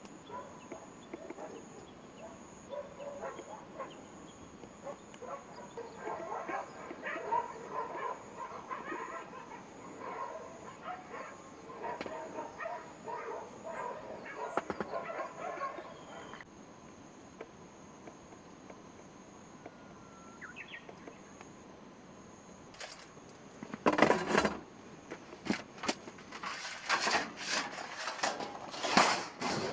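Outdoor ambience of birds calling in a dense chorus over a steady high-pitched buzz. The calls thin out about halfway through, and near the end a run of sharp knocks and clatters becomes the loudest sound.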